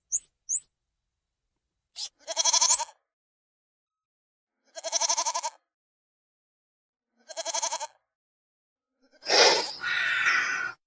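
A goat bleating three times, each a wavering call under a second long, about two and a half seconds apart. Before them come three quick high squeaks rising in pitch from a squirrel monkey. Near the end there is a loud noisy burst and then a rougher rasping sound.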